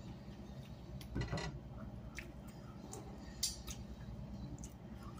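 Faint clicks and light handling noises of people eating at a table, a few scattered ticks against dishes or food, over a steady low hum.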